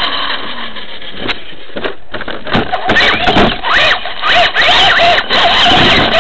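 Onboard sound of a Traxxas Slash RC truck racing on dirt: the motor and drivetrain whine rises and falls in pitch with the throttle, over the rush of the track and wind on the microphone. The whine drops away for a moment about a second in and picks up again from about three seconds in.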